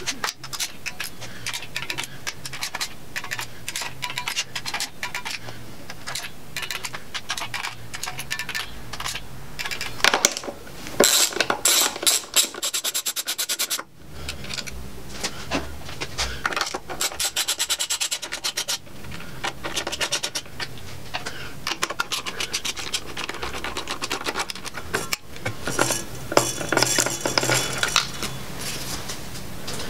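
Socket ratchet clicking in quick, even runs as intake manifold and throttle body bolts are run down and tightened, mixed with knocks and clatter of the metal tools.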